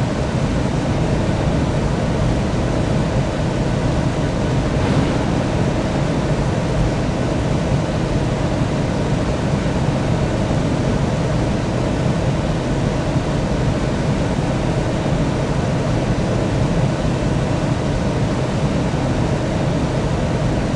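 Steady, unchanging drone of a jet airliner's engines and rushing air, with most of its weight in the low range.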